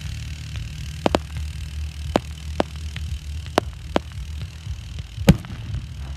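Fireworks going off: about seven sharp bangs at irregular spacing, the loudest about five seconds in, over a steady low rumble.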